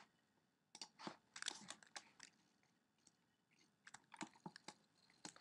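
Faint, irregular clicks and taps from a computer keyboard and mouse, in two short clusters about a second in and again near the end, against near silence.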